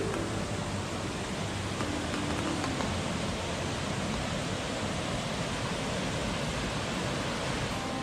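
Steady, even rushing noise, like wind or running water heard outdoors, with no distinct events.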